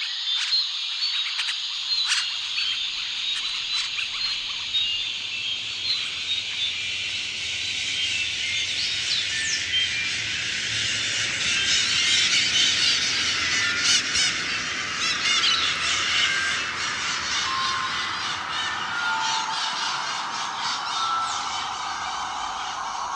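A dense chorus of short chirps, peeps and ticks, frog- and bird-like, that swells in the middle while its whole pitch slowly glides downward.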